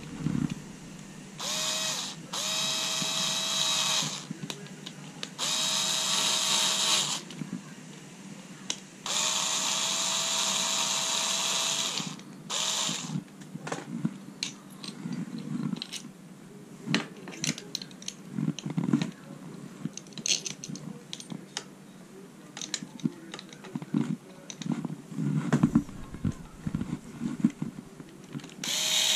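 Cordless electric screwdriver running in about five short spells of one to three seconds each, driving the mounting bolts of a rear bicycle kickstand. It is followed by scattered clicks and knocks of the metal stand and tool being handled.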